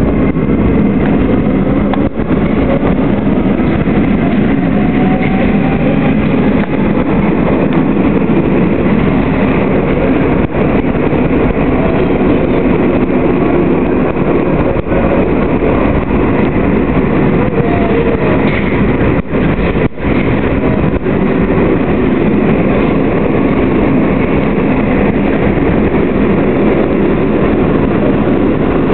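Sofia Metro train running at speed, heard from inside the carriage: a steady rumble and rush of wheels on the rails, with a faint whine that shifts in pitch.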